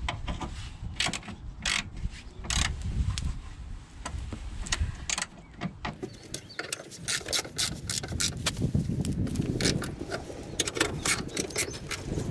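Irregular clicks and knocks of hand tools and parts being handled during work on a car's engine, over a low rumble.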